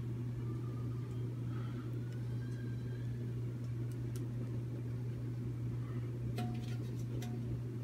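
Steady low room hum, with a few faint clicks and taps as a metal popcorn tin is turned in the hand.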